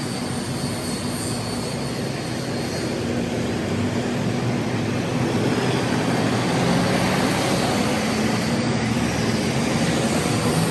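City street traffic: motor vehicle engines running and passing, growing louder about halfway through.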